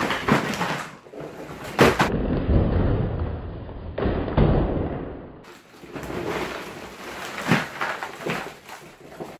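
Cardboard toy box and plastic-bagged race-track pieces rustling and scraping as the box is upended and emptied, with several thuds as the parts drop onto a rug.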